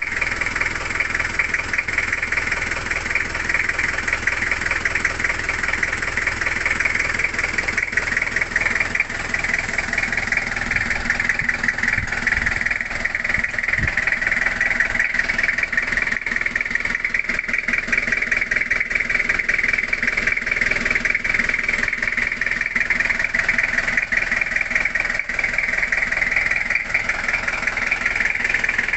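Toyota Kijang's 2L four-cylinder diesel engine idling steadily.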